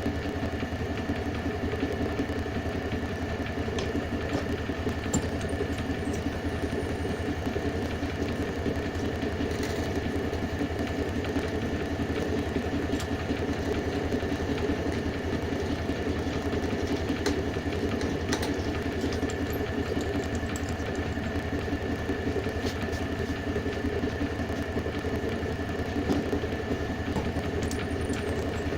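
A machine's motor running steadily at constant speed, a hum with a few steady tones and the occasional faint click.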